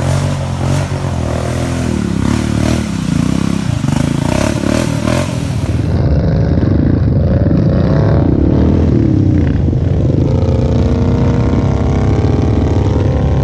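ATV engine revving as it ploughs through a mud hole, with mud and water spraying and clattering against the machine. About six seconds in the sound changes abruptly to several ATV engines running and revving together.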